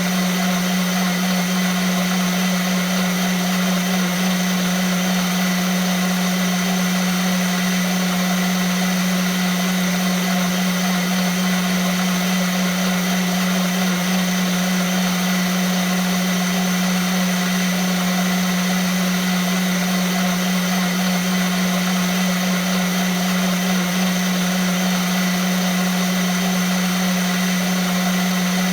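Vitamix blender motor running steadily, a strong low hum under an even whirring hiss, with no change in speed.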